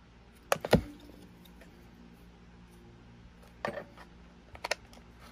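Plastic belt clip being pressed and snapped onto the back of a Philips AQ6492 cassette player's plastic case: a few sharp plastic clicks and knocks. The loudest pair comes under a second in, with single clicks later at about three and a half and four and a half seconds.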